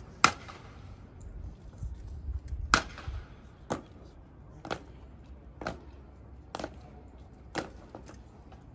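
Sharp cracks of ceremonial guards' boot heels striking cobblestones in drill: two loud strikes, then a steady slow step of about one strike a second.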